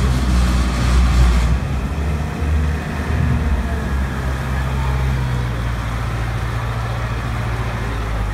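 Amphibious tour bus's engine running steadily under load as it climbs out of the water up a concrete ramp, with water churning and rushing off the hull, loudest in the first second and a half.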